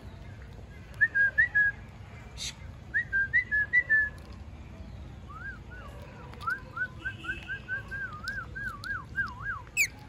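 Rose-ringed parakeets whistling. There are two short runs of chirpy whistled notes in the first half, then a longer series of rising-and-falling whistles that ends in one sharp downward squeak just before the end.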